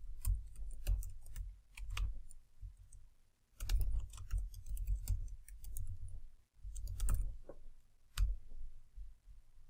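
Typing on a computer keyboard: quick runs of keystrokes broken by short pauses, with one last keystroke near the end.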